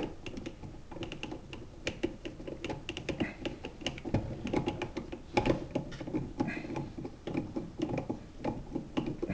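Irregular clicks, taps and small rattles of a plastic outlet and its screws being worked into a metal-and-plastic electrical box by hand and screwdriver, as the folded wires are pushed in and the outlet is fastened.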